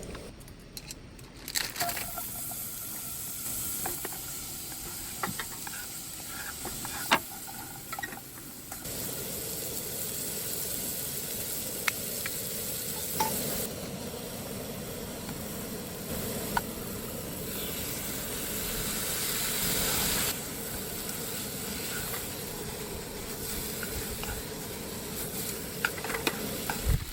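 Food sizzling in a frying pan, with scattered sharp clicks. The sizzle grows louder about nine seconds in and eases again about twenty seconds in.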